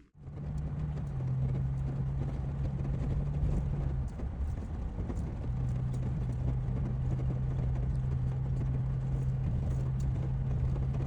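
Steady low hum of a running motor vehicle, with a low rumble under one held tone that drops out briefly about four seconds in.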